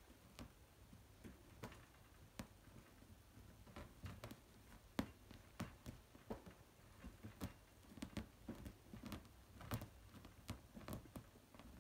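Faint, irregular ticks and scratches of a kitten's claws and paws catching and patting at a terry towel, with the sharpest click about five seconds in.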